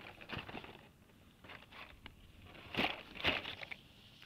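Carded Hot Wheels blister packs clacking and rustling against each other as they are flipped through by hand in a cardboard box: a run of short plastic-and-card clicks, loudest in a pair about three seconds in.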